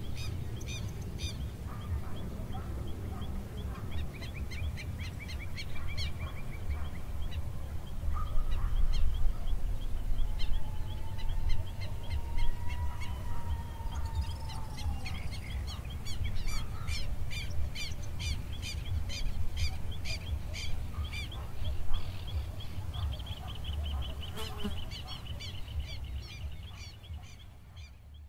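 Field ambience of many birds calling: quick repeated chirps and trills, with one long gliding whistle about halfway through, over a steady low rumble. It fades out near the end.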